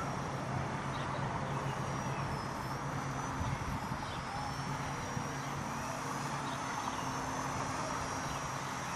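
Walkera 4#3B micro RC helicopter's brushless motor and rotors running in flight: a steady high whine that wavers slightly in pitch as the throttle changes, over a constant rush of wind on the microphone.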